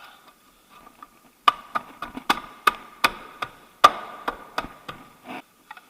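Plastic wheel cover being knocked and snapped onto a car wheel: a run of sharp knocks and clicks, about three a second, starting about a second and a half in.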